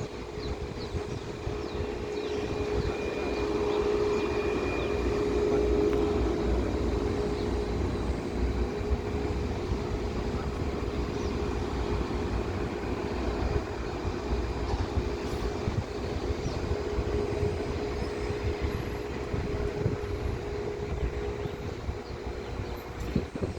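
Jet engines of a Boeing 737 MAX 8 (CFM LEAP-1B turbofans) running with a steady whine over a broad rush, growing louder about four to six seconds in and then slowly easing. A low rumble of wind on the microphone lies underneath.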